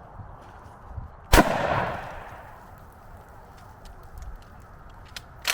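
A shotgun shot: one loud blast about a second and a half in, its echo ringing on for about a second. Near the end come a sharp click and then a second, shorter crack.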